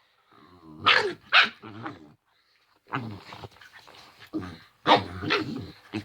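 A pet dog making its play noises: pairs of sharp barks about a second in and near the end, with growling between them. These are the dog's normal playing sounds, not aggression.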